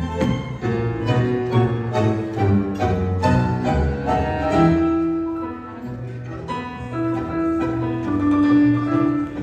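Tango music played by a small live band: a piano and a double bass, with plucked and bowed string notes under the melody.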